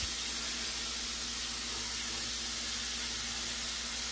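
Steady hiss of a stockpot of water with chicken wings heating toward a boil on an electric stove burner, with a faint steady hum underneath.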